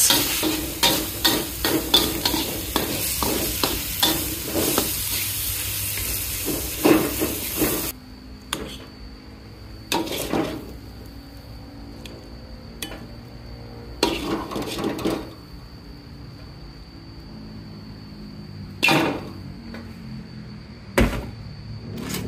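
A rice stir-fry sizzling in a wok while a metal spatula stirs and scrapes against the pan, with many sharp clicks. About eight seconds in, the sizzle stops suddenly. After that come a few separate clanks of the spatula on the wok and a bowl as the food is scooped out.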